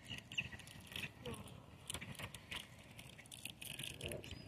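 Faint, irregular clicks and small splashes as a hooked sunfish is reeled up to the side of the boat.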